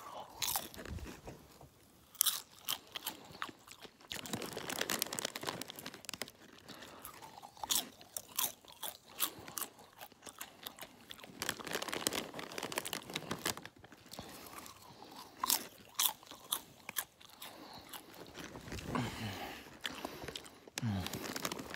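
Popcorn being chewed close to the microphone: irregular, crisp crunches, mouthful after mouthful, with short quieter pauses between them.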